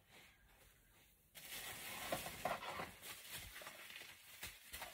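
Faint rustling of clothes being handled and pressed into a soft-sided suitcase, starting abruptly after about a second of near silence, with a few soft taps and scuffs.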